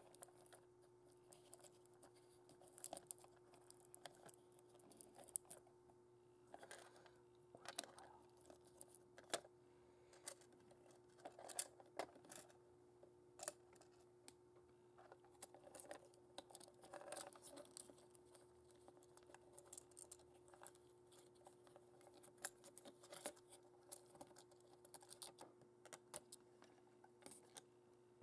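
Faint, scattered clicks, taps and light rustles of small plastic model parts being handled and fitted by hand, over a faint steady hum.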